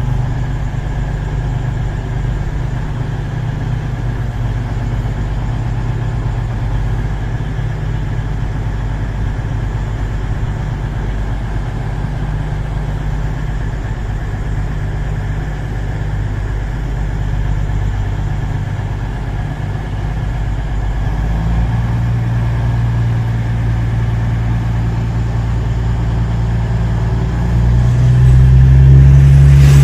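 Diesel train engine idling at a steady low hum, growing louder about two-thirds of the way through and again near the end as it builds up.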